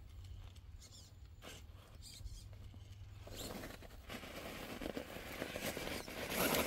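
Custom Axial Capra RC rock crawler's tyres scrabbling and crunching over rock and dry leaf litter as it climbs a steep face. A few faint clicks at first, then a scratchy rustle from about three seconds in that grows louder as the truck comes close.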